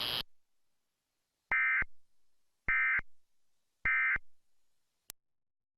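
Emergency Alert System end-of-message (EOM) signal: three short bursts of digital data tones about a second apart, the 'NNNN' code that closes an EAS alert. A single click follows near the end.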